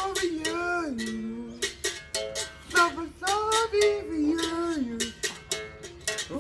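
Berimbau played with a stick: rhythmic strikes on its steel wire, ringing through the gourd resonator, with a man singing along over it.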